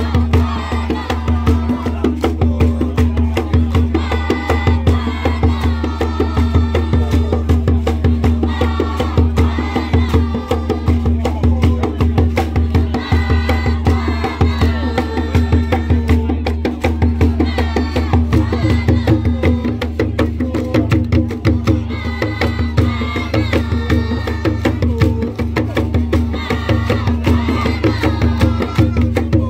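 Traditional hand drums beaten in a fast, steady rhythm, mixed with the rattle and stamp of dancers' ankle rattles. A group of voices sings in short repeated phrases over the drumming.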